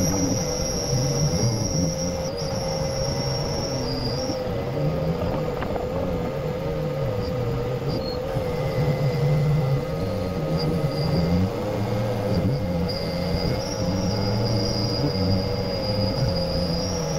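Pneumatic random orbital sander running against a car's painted panel, sanding back the clear coat. It makes a steady high air-tool whine that dips in pitch a few times, over a wavering lower drone.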